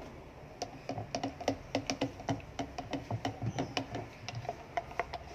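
Silicone spatula stirring in a plastic measuring jug, knocking and scraping against its sides in quick, uneven taps, several a second, starting about half a second in.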